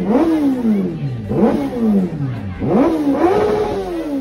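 Sport motorcycle engine revved hard in repeated blips, about three in a row: each time the pitch shoots up quickly, then falls away over about a second.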